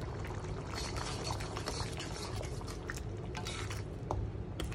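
Thick chili sambal bubbling and spitting in a wok as it cooks down, with a metal slotted spatula stirring through it and clicking against the pan now and then.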